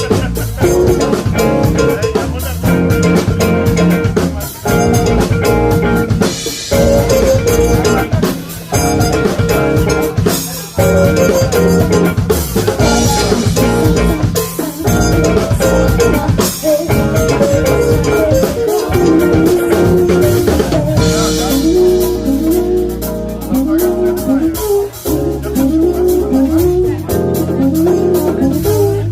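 Music with a drum kit and guitar playing. About two thirds of the way through, the drums drop out, leaving a repeating guitar phrase with short sliding notes over a low sustained bass.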